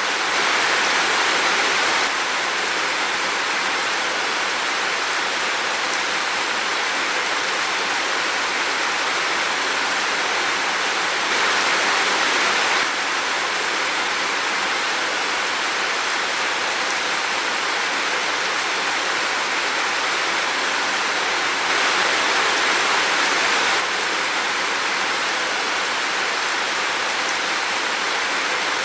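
Heavy rain falling, a dense steady hiss that swells a little louder for a second or two three times.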